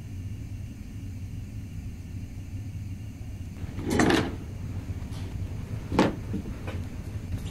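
A steady low hum, with a short rustling swish about four seconds in and a single sharp knock about two seconds later.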